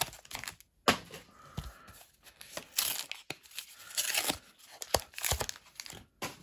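Pokémon booster pack wrappers being torn open and crinkled by hand, in short irregular bursts of rustling with a few sharp crackles.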